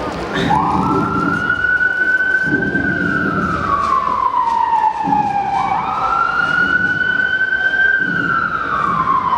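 Police siren sounding a wail: starting about half a second in, each cycle rises quickly, holds high, then falls slowly, repeating about every five seconds.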